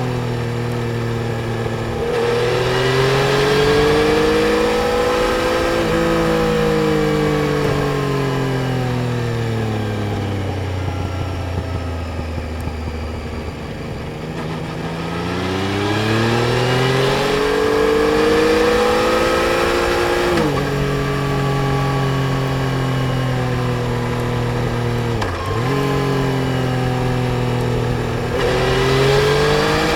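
Yamaha Tracer 900 GT's inline three-cylinder engine under way, its pitch rising and falling as the bike accelerates and eases off. There is a long slowdown around the middle, two sudden drops in pitch in the last third, and it picks up again near the end.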